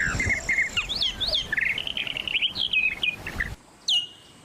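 Songbird chirping: a quick run of whistled notes sliding up and down, which cuts off abruptly about three and a half seconds in, then one whistle that slides down into a held note near the end.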